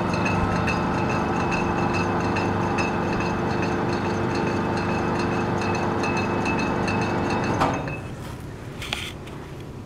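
Methods 5-ton welding positioner's table drive, motor and gearing, running with a steady hum and light ticking, then stopping abruptly about three quarters of the way through.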